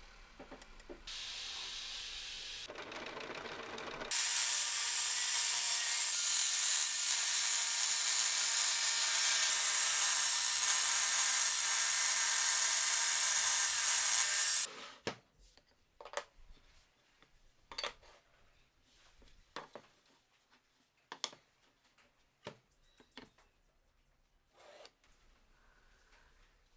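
A power tool runs steadily for about ten seconds and then stops abruptly. Before it starts there is a short stretch of quieter rubbing noise. After it stops there are scattered light clicks and knocks of wood and tools being handled.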